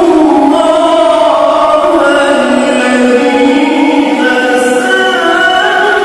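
A male qari reciting the Quran in long, melodic held notes into a microphone, one unbroken ornamented phrase that dips lower and then rises higher about four seconds in.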